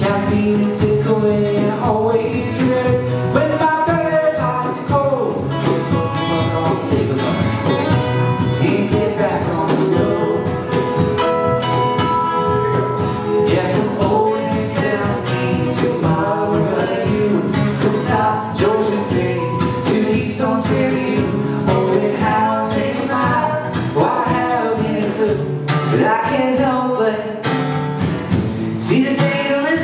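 Live acoustic folk-country music: two acoustic guitars strumming with a cajon tapping out the beat, and singing over them.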